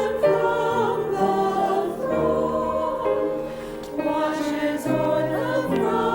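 Choir singing a hymn with instrumental accompaniment and sustained bass notes.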